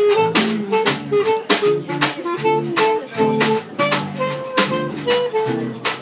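Small jazz quartet playing live: a clarinet melody over acoustic guitar, upright bass and a drum kit, with cymbal strokes keeping a steady beat about twice a second.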